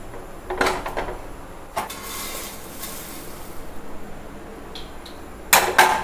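Cookware handling as dry roasted beaten-rice flakes are moved from a nonstick pan. There are a few knocks of a spatula against the pan, a dry rustle of the flakes sliding for a second or so, and a loud pair of clanks of the pan near the end.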